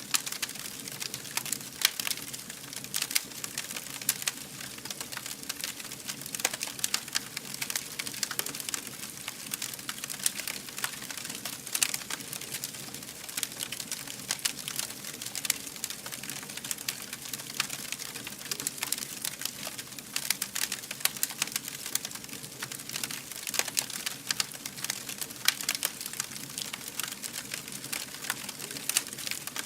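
Wood fire burning with a steady hiss and dense, irregular crackles and pops throughout.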